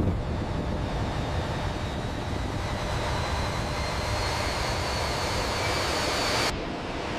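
C-5M's turbofan engines running, a steady rumble under a faint whine that rises slowly in pitch. The high part of the sound cuts off abruptly near the end.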